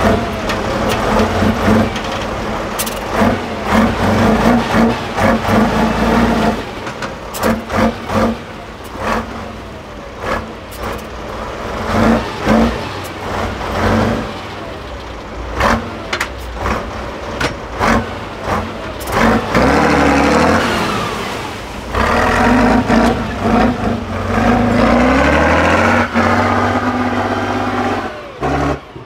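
Diesel engine of an eight-wheeled Tatra 813 trial truck working hard under load through mud and up a steep climb, with many sharp knocks and clatters through the first two-thirds and the revs rising twice later on.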